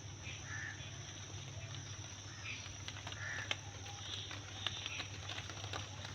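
Outdoor natural ambience: birds calling a few times, over a steady high-pitched drone like an insect chorus, with scattered small clicks.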